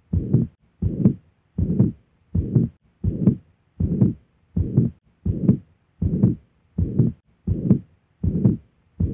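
Recorded heart sounds: a regular heartbeat of about 80 beats a minute, each beat a short, low, paired sound with a noisy haze around it.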